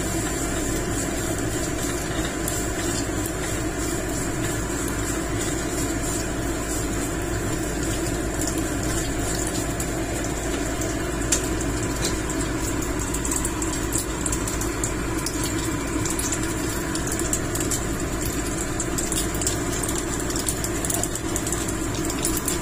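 A steady hum, with faint light crackles from spaghetti and pesto frying in a nonstick pan over a gas burner.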